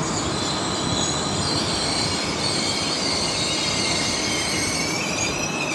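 Regional railcar rolling slowly through a station, its wheels squealing against the rails with several wavering high-pitched squeals over a steady rumble of wheels on track.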